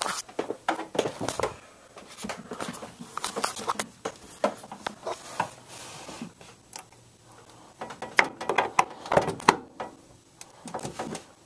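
Irregular clicks, knocks and rustles of hands handling an HDMI cable and plugging it into an HDMI port on the back of a TV.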